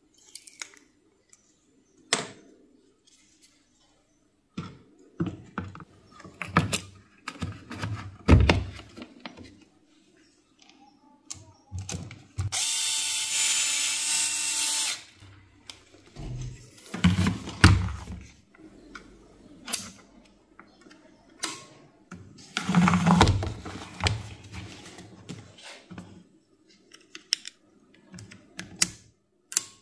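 Tools and parts being handled: scattered clicks, knocks and clatter, with a small power tool's electric motor running steadily for about two and a half seconds near the middle.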